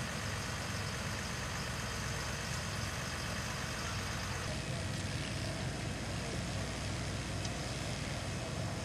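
Parked fire engine's engine running steadily at idle, a continuous low rumble with a hiss over it.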